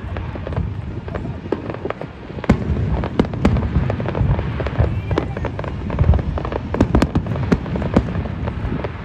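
Aerial fireworks display: shells bursting and crackling over a continuous low rumble, with many sharp bangs in quick succession that come thicker in the second half.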